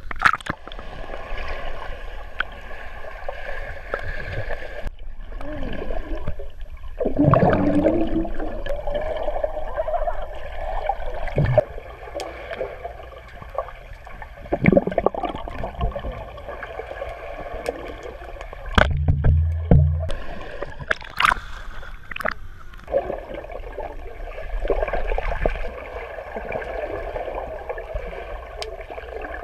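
Muffled underwater sound in a swimming pool: swimmers' bubbles and gurgling water, with a few sharp knocks or splashes and a brief low thump about two-thirds of the way through.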